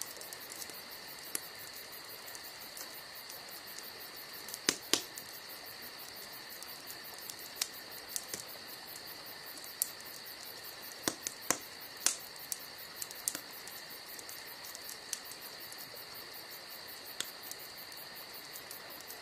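Steady high-pitched insect chirring with a rapid even pulse, with a few sharp clicks scattered through it.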